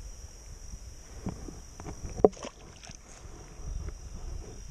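Steady high-pitched buzz of insects over low rumbling handling noise with a few small clicks, and one sharp knock about two seconds in.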